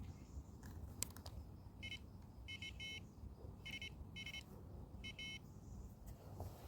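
A series of short, high electronic beeps, flat in pitch, coming in quick pairs and singles over about three seconds, with a single sharp click about a second in.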